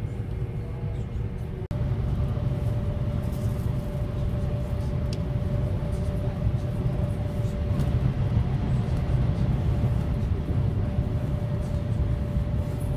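Steady low rumble inside the passenger cabin of a high-speed train at speed, with a steady whine over it. It breaks off for an instant about two seconds in and comes back a little louder.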